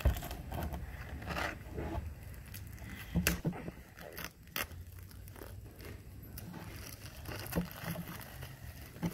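Light clicks, scrapes and rustles of small objects and paper being handled on a tabletop, with a sharper knock a little over three seconds in.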